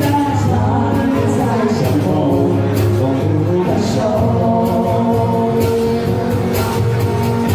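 Live band playing a Mandarin pop song, with a voice singing over the band.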